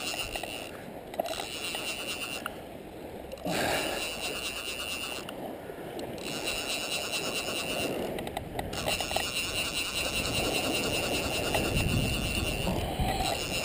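Fly reel's clicker drag buzzing as a hooked snook pulls line off the reel, in several runs of one to four seconds with short pauses between them; the longest run comes in the second half. Water sloshes around the wading angler's legs underneath.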